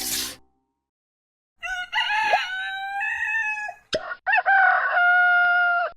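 A rooster crowing twice, two long held crows a little over a second apart.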